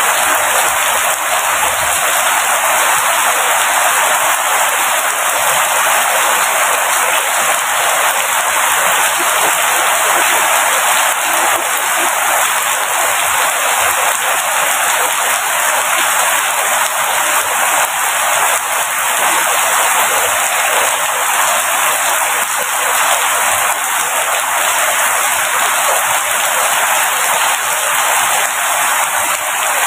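Rain falling steadily: an even, dense hiss of drops with little low rumble and no breaks or single distinct strikes.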